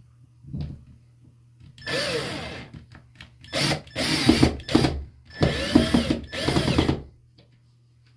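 Cordless drill driving screws through a metal towel-bar mounting bracket into the wall, run in a series of short bursts of up to about a second, its whine rising and falling with each squeeze of the trigger.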